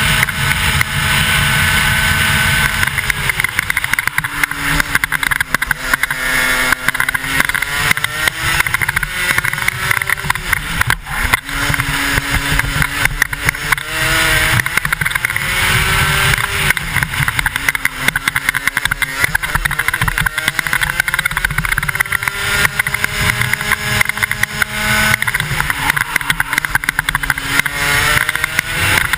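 125cc two-stroke racing kart engine driven hard around a circuit: its pitch drops as the driver lifts and brakes for corners and climbs again as it accelerates out, several times over.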